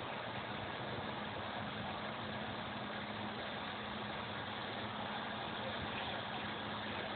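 A steady mechanical hum with an even hiss over it, holding level without change.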